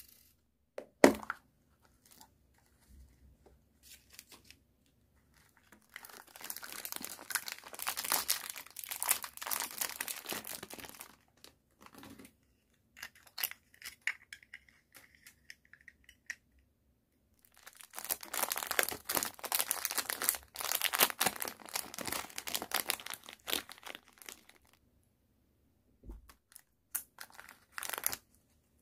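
Thin plastic bags of gashapon miniature toy parts crinkling and being torn open in several long bursts. There is one sharp click about a second in and a few lighter clicks near the end.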